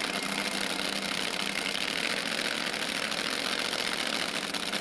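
Nitro-burning top fuel drag motorcycles idling on the start line: a steady engine note with no revving.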